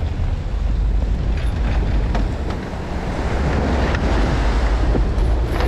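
Wind buffeting the microphone over sea surf washing against the rocks, with the low steady rumble of a ferry boat's engine holding its bow against the ledge.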